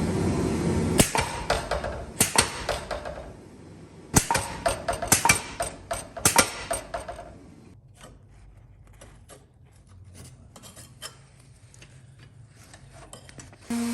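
A steady noise stops about a second in. Then comes a run of sharp knocks and clicks, clustered and loud for several seconds, after which the clicks grow faint and sparse.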